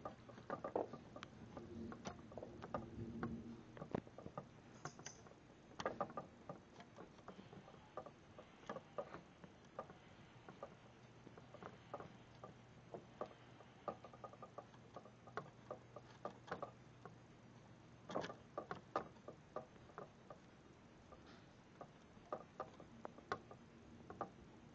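Water drops pattering during a thunderstorm: scattered light ticks and taps, a few a second at irregular intervals.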